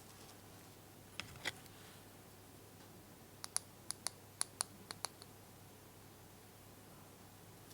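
Small wooden toy pieces clicking and tapping as they are handled. There are a couple of soft knocks about a second in, then a quick run of about eight sharp clicks in the middle.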